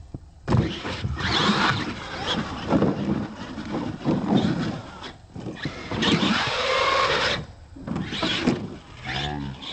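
Radio-controlled monster truck's motor and drivetrain revving in short bursts, the pitch rising and falling, with brief pauses in between.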